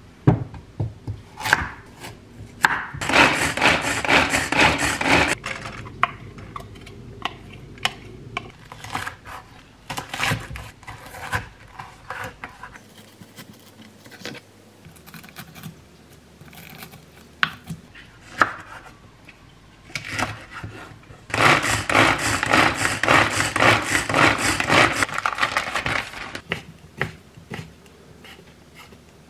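Chef's knife cutting vegetables on a wooden cutting board: scattered single knocks of the blade on the board, with two stretches of fast, continuous chopping, one about three seconds in and one past twenty seconds.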